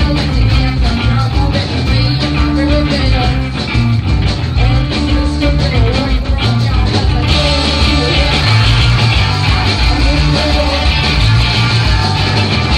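Live indie-punk rock band playing loud: electric guitar, electric bass and a drum kit with a steady beat. About seven seconds in, the cymbals get heavier and brighter.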